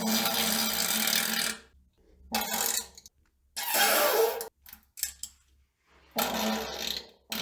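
A string of big farts with silent gaps between them. A long one runs into the first second and a half, then come two shorter ones, a couple of very brief puffs in the middle, and another long one near the end.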